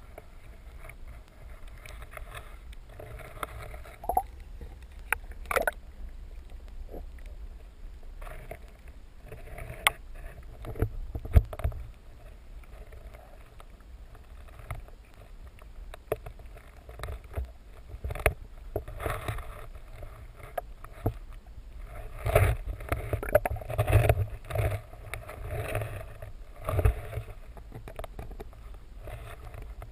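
Underwater sound through a camera's waterproof housing: a steady low rumble of moving water with scattered sharp clicks and knocks, busier and louder in the second half.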